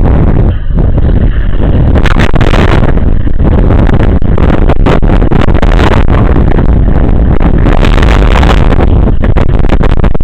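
Storm wind buffeting the camera's microphone, overloading it into a loud, constant, distorted rumble.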